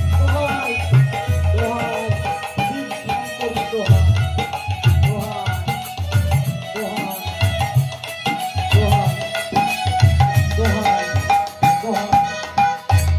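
Manasa gaan, Bengali devotional folk music: a man singing over a steady beat on a two-headed hand drum, with harmonium.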